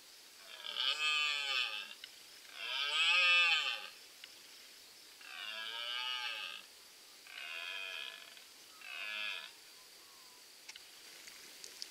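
Red deer stag roaring in the rut: five calls of about a second each, each rising and then falling in pitch, the last one shorter.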